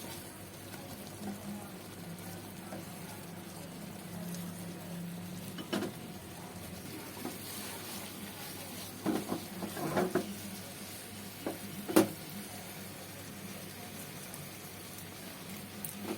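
Stuffed tofu frying in cooking oil, nearly cooked through: a steady sizzle, broken by a few sharp knocks, the loudest about twelve seconds in.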